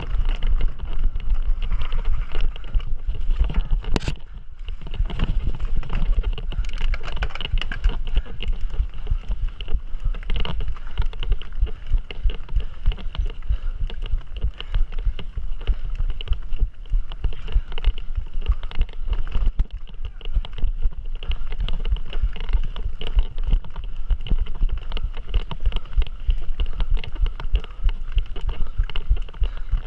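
Mountain bike ridden over rough trail: a continuous, dense rattle and low rumble of tyres and frame on uneven ground, with wind on the microphone.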